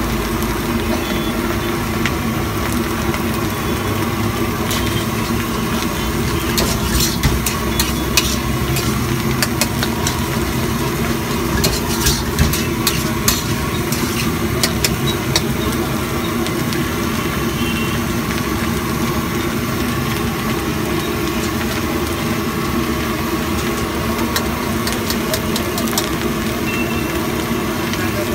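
Metal spatula scraping and clanking against a wok as a big batch of egg fried rice is stirred and tossed, with sharp clinks coming thickest in the middle stretch. A steady mechanical hum runs underneath.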